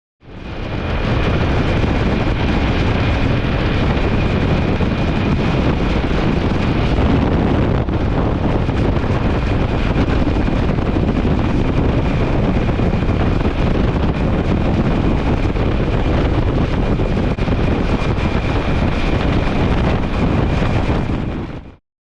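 Strong wind buffeting the microphone in a loud, steady rush, with a faint high whine running under it; it fades in at the start and cuts off just before the end.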